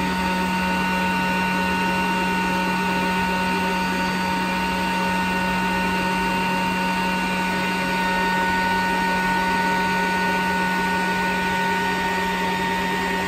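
Glowforge laser cutter running steadily as it slowly engraves sandstone into glass: an even hum with several constant high tones.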